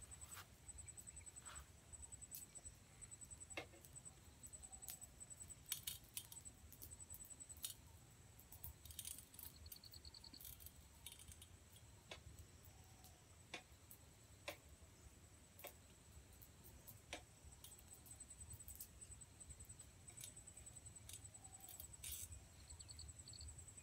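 Faint campfire crackling, with irregular sharp pops and ticks, over a steady high-pitched insect trill and a low rumble.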